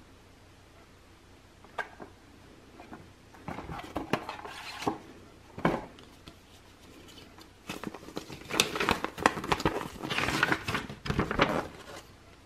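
Handling noises from a cardboard ornament box and a folded paper instruction leaflet: scattered clicks and short rustles, then a longer run of paper crinkling and rustling from about eight seconds in as the leaflet is unfolded.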